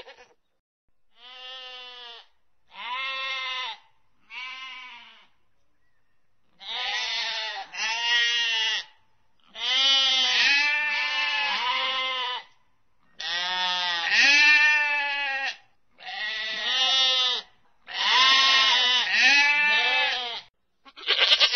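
Animals bleating: about a dozen long, wavering calls one after another, several in close pairs, fainter at first and louder from about six seconds in.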